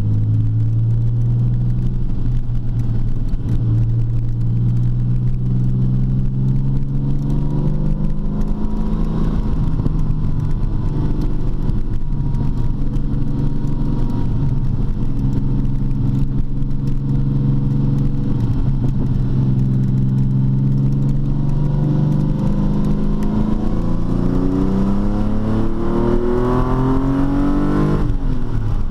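TVR T350's straight-six engine running, its note holding fairly steady with slow drifts in pitch, then climbing steadily as it accelerates near the end before the pitch falls away suddenly.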